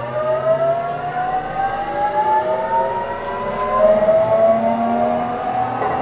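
Toshiba GTO-thyristor VVVF inverter of an 813 series electric train's motor car, several whining tones rising steadily in pitch together as the train accelerates under power.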